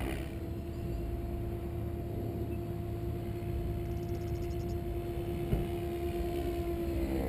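Electric Synergy E7se RC helicopter flying high overhead, its motor and rotor blades making a steady drone that holds one pitch.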